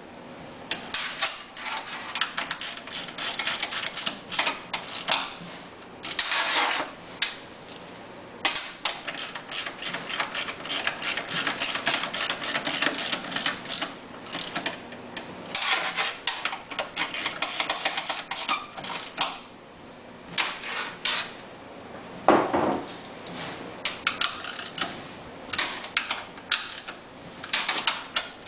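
Hand ratchet wrench clicking in rapid runs, stroke after stroke, as the generator's engine mount bolts are tightened down, with short pauses between runs.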